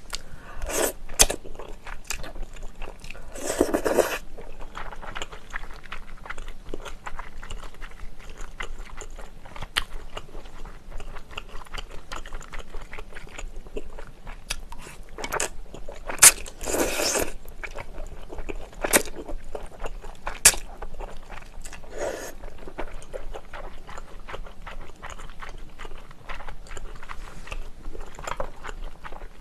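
Close-miked eating: chewing and slurping wide Chinese glass noodles, with many small wet mouth clicks. A few louder, longer slurps come about four seconds in and again around seventeen seconds.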